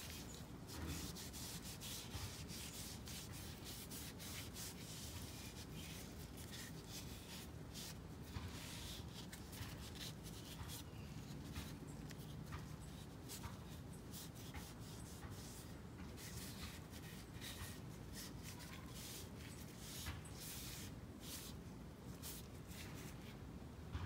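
A rag rubbed back and forth over a wooden hand-saw handle, a soft, faint swishing with each of many short strokes, working linseed oil into the wood.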